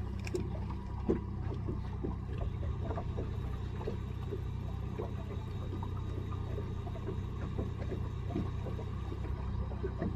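Boat motor running steadily at low speed, with small water splashes.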